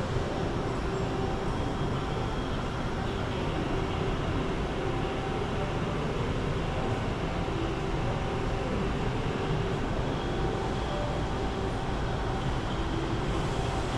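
A steady mechanical rumble with a faint hum running through it.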